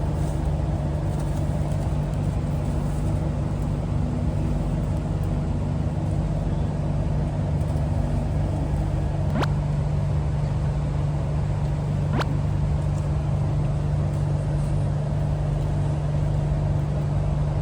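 Steady running noise inside the cabin of an Iryo high-speed train, a rumble with a constant low hum. Two short clicks come in the middle, nearly three seconds apart.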